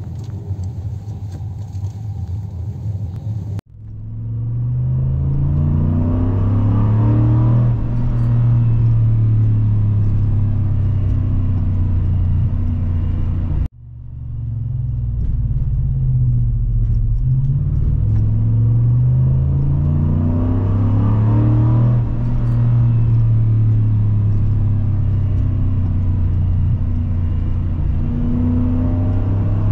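Car engine heard from inside the cabin, accelerating with its pitch rising several times as it pulls through the gears, then running steadily at speed. The sound breaks off abruptly twice and picks up again.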